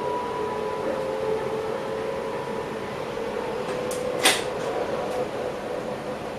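Passenger train running, heard from inside the driver's cab: a steady rumble and hiss with a faint whine of a few held tones, and one sharp click about four seconds in.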